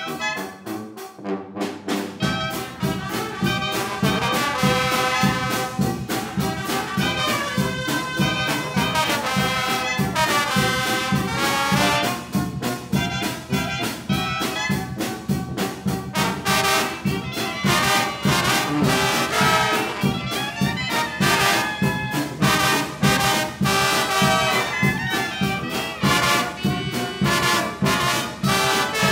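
Brass band music: trumpets and trombones playing over a steady drum beat, with the bass and drums coming in fully about two seconds in.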